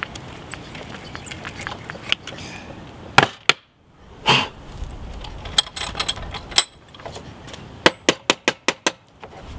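A hand brace boring a tang hole into a wooden handle block held in a metal vise: irregular metallic clicks and knocks, two loud knocks about three seconds in, then a quick run of about six sharp clicks near the end.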